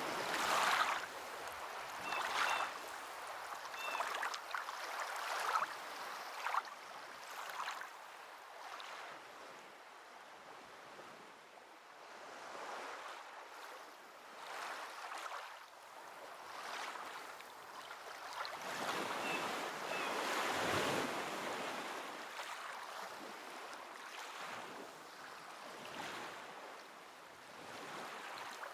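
Water washing and splashing in irregular surges that swell and ebb, like small waves lapping.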